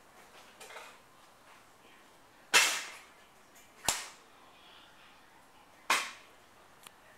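Three sharp bangs a second or two apart, each trailing off briefly; the first is the loudest.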